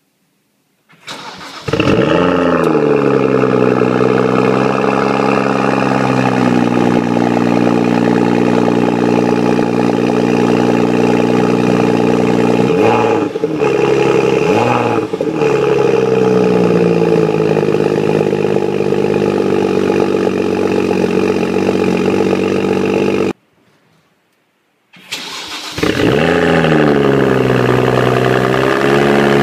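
BMW 135i's N55 turbocharged straight-six cold-starting through the stock exhaust: it catches, flares up in revs and settles into a steady idle, with two short revs in the middle. After a cut, the same engine cold-starts again through the BMW Performance exhaust with its Y-pipe in place of the resonator, flaring and then settling into idle.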